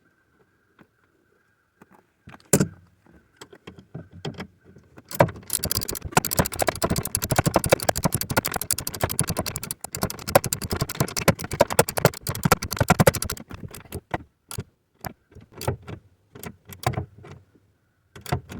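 Ratchet driving a 7mm bolt home: a long run of fast metallic ratchet clicks as the bolt holding the accelerator pedal position sensor is tightened, followed near the end by slower, separate clicks and a few knocks.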